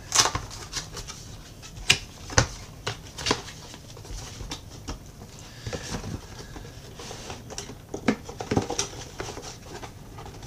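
Cardboard box being opened by hand: flaps pulled back and the inner box worked out, with irregular sharp taps, scrapes and rustles of the paperboard.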